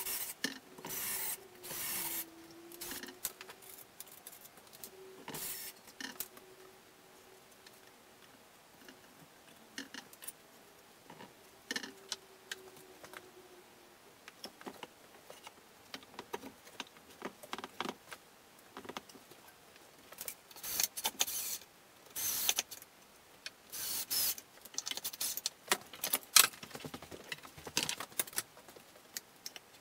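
Short scraping and rubbing strokes by hand, in irregular bunches with quiet gaps between them, busiest in the second half; a faint wavering hum runs through roughly the first half.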